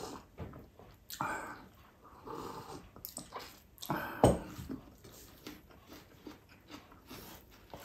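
Close-up mouth sounds of eating by hand: chewing and lip-smacking, with a slurping sip of hot coffee at the start. A sharp knock on the table about four seconds in is the loudest sound.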